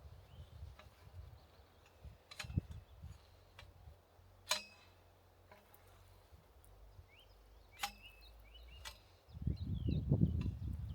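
Three sharp knocks spread several seconds apart over a faint outdoor background with short high chirps. Dense low thudding and rumbling starts near the end.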